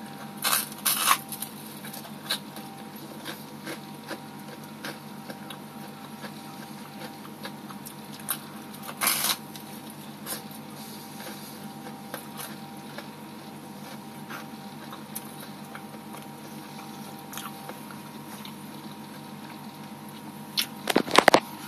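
A person chewing and biting into a pizza sub, with short bursts of mouth and handling noise near the start, about nine seconds in and near the end. Under it runs the steady hum of an aquarium air pump bubbling.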